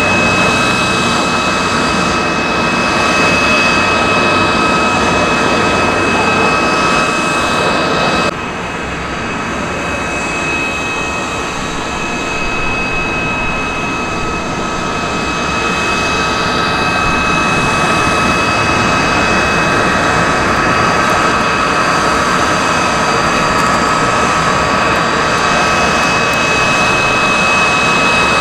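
Jet engine noise: a steady rushing roar with a high, steady whine, which drops abruptly about eight seconds in and then slowly builds back up.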